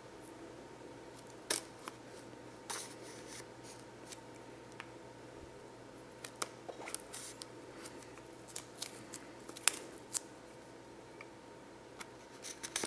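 Knife blade slitting the clear plastic shrink wrap along the edges of a phone box: faint scrapes and scattered sharp clicks and ticks as the blade catches and the box is handled.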